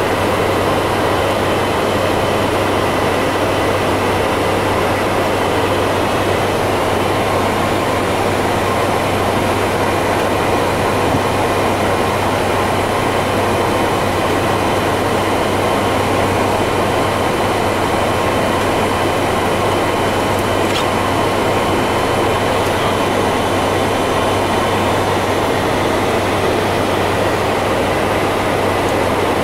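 Steady flight-deck noise of a Boeing 747-400 freighter in descent: an even rush of air with a steady low hum underneath and faint thin whines above, unchanging throughout.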